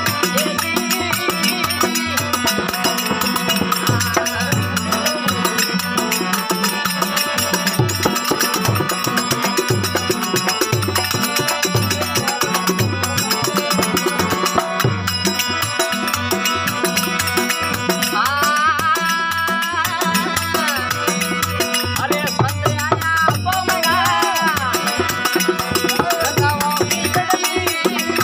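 Instrumental interlude of a Rajasthani folk bhajan: a steady, fast rhythm of drum and rattling percussion, with a wavering melody line coming in about two-thirds of the way through and again near the end.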